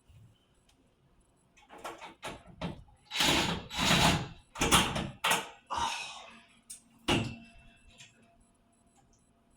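Irregular scraping and clattering from work on a metal shower curtain rod. It comes as a run of short noisy bursts beginning about a second and a half in, loudest in the middle, with a last one about seven seconds in.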